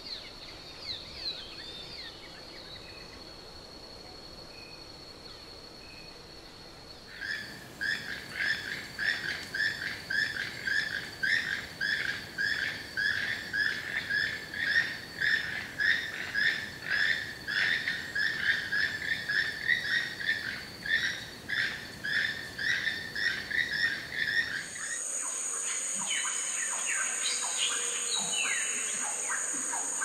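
Rainforest wildlife sound in three parts. First a steady high insect drone with a few chirps. About seven seconds in, a loud call starts, repeated about three times every two seconds for some seventeen seconds. Near the end it gives way to a high, steady multi-tone insect buzz.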